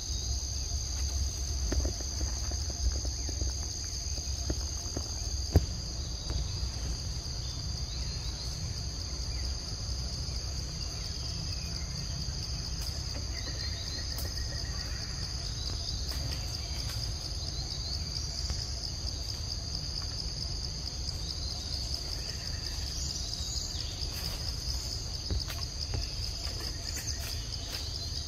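Steady high-pitched drone of a forest insect chorus, over a low rumble, with one sharp click about five and a half seconds in.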